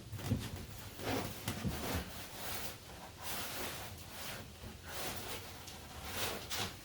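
Rustling and handling noise from hands searching inside an opened car door, in a string of short scrapes with a few soft knocks in the first couple of seconds.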